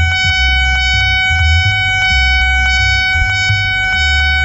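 Nippon Signal-type electronic railway level crossing alarm sounding loudly: a steady high ringing tone with a fast even tick, about four to five strokes a second, warning that a train is approaching. An uneven low rumble runs underneath.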